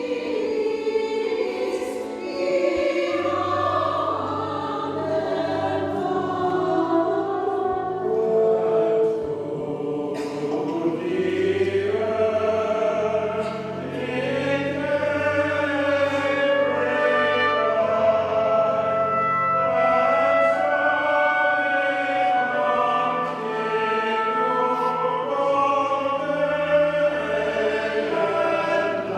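Choir singing a sacred piece, with instrumental accompaniment holding sustained low bass notes beneath the voices.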